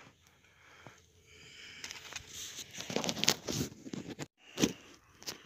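Irregular scuffs, rustles and light slaps as a just-caught roach is handled and flaps on dry, trampled riverbank mud, starting about a second and a half in.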